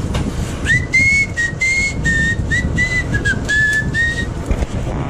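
A person whistling a short tune, about ten notes of shifting pitch, starting just under a second in and stopping a little after four seconds, over a steady background rush.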